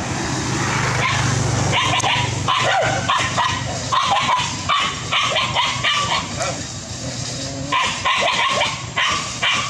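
Dogs barking in quick runs of short, sharp barks and yips, starting about two seconds in, with a pause of a second or so around the seventh second before a few more barks near the end.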